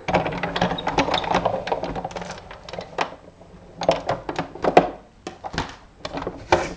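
Small hard craft items clicking and rattling as they are handled: thin metal cutting dies being picked out for die-cutting. A dense clatter in the first three seconds, then shorter bursts of clicks about four and five seconds in and again near the end.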